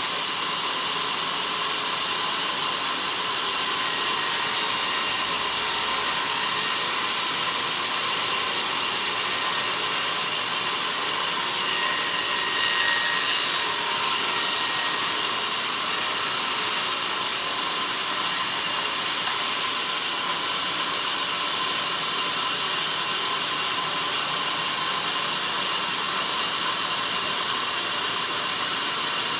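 Sawmill band saw running through a log, a steady hissing cutting sound. It gets louder about four seconds in and drops back a little near twenty seconds.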